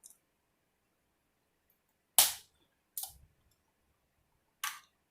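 Snow crab legs cracking open: three sharp snaps of shell over about two and a half seconds, the first the loudest.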